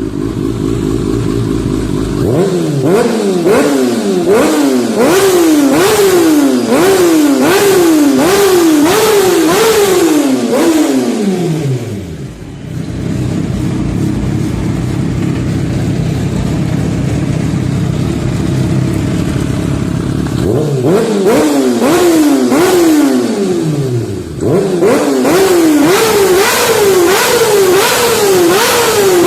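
Motorcycle engine revved in quick repeated blips, its pitch rising and falling a little more than once a second. About twelve seconds in it drops back to a steady low idle for some eight seconds, then the quick revving starts again.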